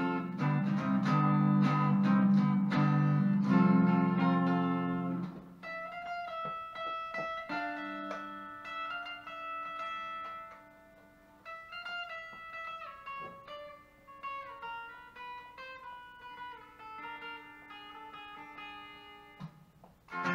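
Les Paul-style electric guitar playing an instrumental: loud strummed chords for about five seconds, then quieter single picked notes forming a slow melody, with the loud chords coming back right at the end.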